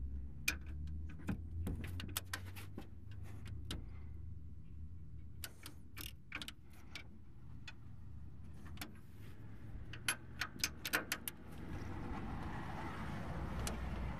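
Metal hand tools clicking and clinking irregularly as a torque wrench and a second wrench tighten the lower rear shock bolt, with a quick cluster of clicks about two-thirds of the way in. A low steady hum runs underneath.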